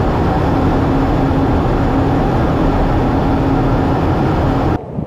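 Fighter jet cockpit noise in flight: loud, steady engine and airflow noise with a steady low hum, cutting off abruptly near the end.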